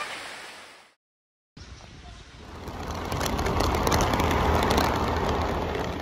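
Rushing stream water fades out over the first second, followed by a short silence. Then a moving scooter is heard: its road and wind noise, with wind buffeting the microphone, grows louder and stays loud.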